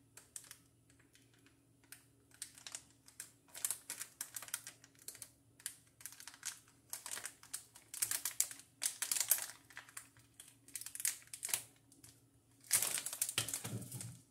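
Plastic snack bag crinkling and crackling in irregular clusters of quick clicks as a handheld mini heat sealer is pressed and drawn along its top edge. The crinkling grows louder near the end as the bag is lifted and handled.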